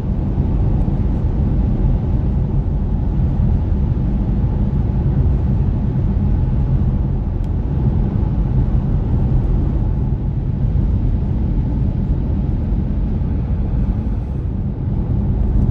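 Steady low road rumble inside a moving car's cabin, tyre and wind noise.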